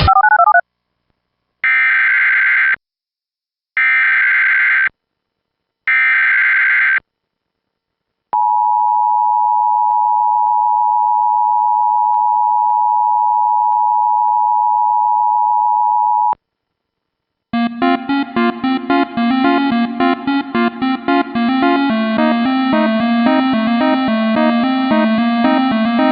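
Emergency Alert System alert: three roughly one-second bursts of SAME header data tones with short gaps between them, then the two-tone EAS attention signal held steady for about eight seconds. About two-thirds of the way through, synthesizer music starts.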